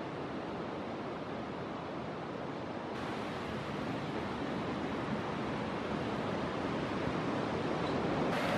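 Steady rush of ocean surf breaking on a beach, an even noise with no distinct calls or knocks.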